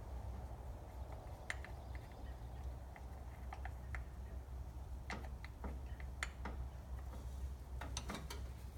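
Scattered light clicks and taps of hands and a wrench working on the engine hardware of a Chevy small-block 350, over a steady low hum. The taps come in small clusters, most about halfway through and again near the end.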